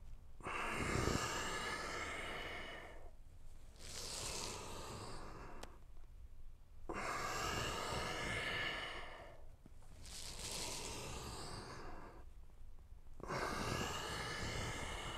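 A man breathing deeply and audibly through a stretching exercise: slow long breaths in and out, about five in all, each two to three seconds long with short pauses between.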